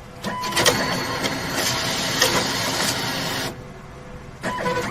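ATM cash-dispensing sound: a rapid mechanical whirring rustle like notes being counted, lasting about three seconds before cutting off abruptly. The narration holds that this counting sound is artificial, played from a small speaker inside the machine rather than made by the counting mechanism.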